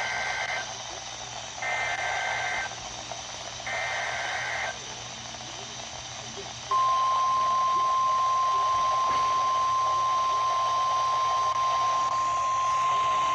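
Emergency Alert System SAME header on NOAA Weather Radio: three one-second bursts of warbling digital data tones, then, after a short gap, the steady single-pitch 1050 Hz weather-radio warning alarm tone starts about seven seconds in and holds. The alarm tone marks a warning being broadcast.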